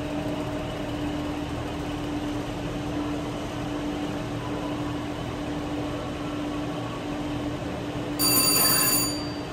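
VGT 9-line slot machine sounds: a steady electronic hum under the spinning reels, then, about eight seconds in, a loud, bright bell-like ring lasting under a second as the red screen awards a free spin.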